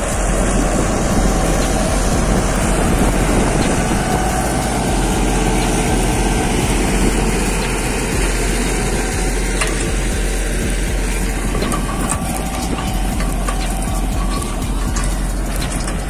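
Hattat 398 tractor's diesel engine running steadily under load as it pulls a mounted plough through dry fallow ground, with the rushing scrape of soil turning over the plough bodies and a few short clicks near the middle.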